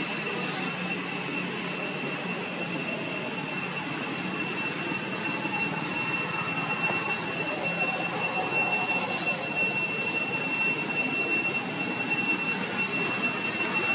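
Outdoor ambience: a steady high-pitched drone of several held tones over a faint rustling background haze that grows slightly louder about halfway through.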